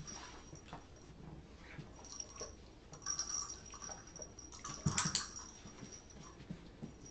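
Blue Weimaraner moving about on a rug, nosing and mouthing a small toy ball, making soft scuffs and knocks. A cluster of sharper knocks about five seconds in is the loudest part.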